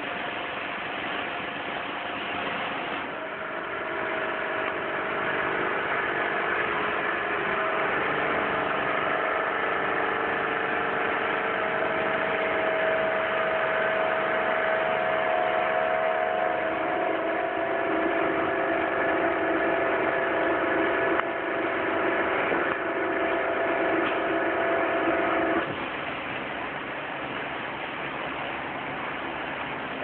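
High-pressure washer spraying water onto a concrete floor with a steady hiss. From about three seconds in, the washer's motor runs with a steady hum that shifts pitch partway through and cuts off a few seconds before the end.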